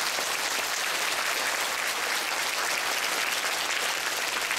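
A large auditorium audience applauding, a dense steady clapping.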